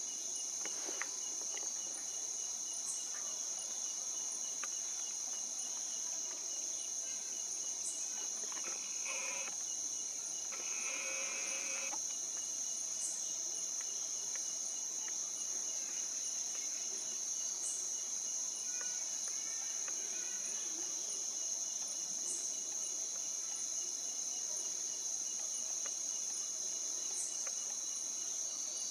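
Steady, high-pitched drone of a chorus of insects such as crickets. Two short animal calls stand out about nine and eleven seconds in.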